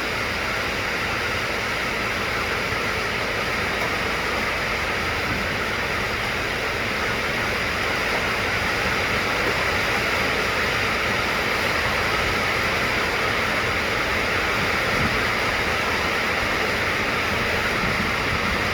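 A steady, even hiss that holds at one level throughout. No distinct tool or machine sounds stand out above it.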